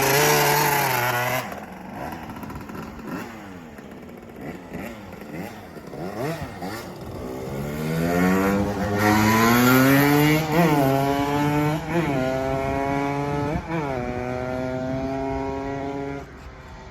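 1997 Suzuki RM125's 125cc two-stroke single-cylinder engine running and being revved. The pitch climbs and is held high, with three sharp throttle blips. The engine drops away near the end.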